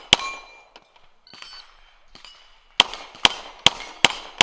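9mm Glock 17 pistol fired at steel targets. One shot comes just after the start, then a pause of about two and a half seconds with a few faint knocks. A fast string of five shots follows, about 0.4 s apart, each shot trailed by the short ring of struck steel.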